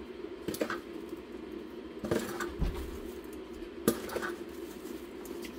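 Stainless steel measuring spoons clinking against a jar and a stainless steel stockpot as salt is scooped and tipped onto cheese curds: a few separate clinks, the sharpest about four seconds in, over a faint steady hum.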